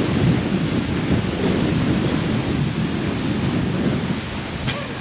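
Strong gusting wind buffeting the microphone: a loud, heavy low rumble that eases a little near the end.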